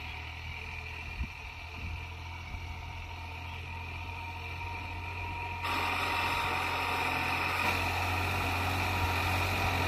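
Farm tractor's diesel engine running steadily under load as it works a field, a constant low drone. It becomes louder and fuller about halfway through.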